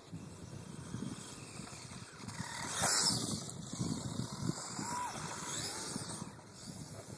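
Traxxas 1/16 Summit VXL electric RC truck driving on beach sand. Its motor and tyres swell to a loud rush as it passes close by about three seconds in, then fade as it pulls away.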